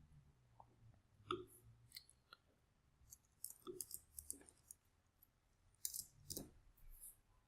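Faint, irregular clicks at a computer, over near silence.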